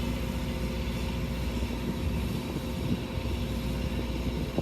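Steady engine drone with a constant low hum, as heard aboard a small car ferry under way.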